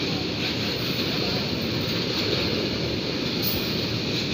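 Freight train of tank wagons rolling past close by: a steady, even noise of steel wheels on the rails.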